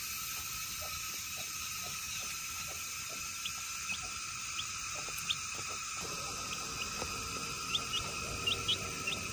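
A domestic chick peeping in short, high chirps, now and then and more often near the end, over a steady background hum. Faint soft ticks of a cat lapping from a bowl come during the first six seconds.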